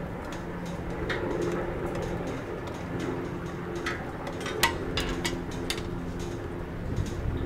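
Stadium grandstand collapsing in a demolition implosion, heard from a distance: a low rumble with a steady hum, and a run of sharp cracks and clatter of falling debris about four to six seconds in, the loudest just past four and a half seconds.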